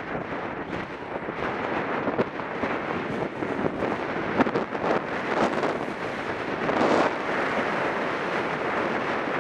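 Wind buffeting the microphone over the steady scrape of edges carving groomed snow on a fast run, with a louder gust of scraping around seven seconds in.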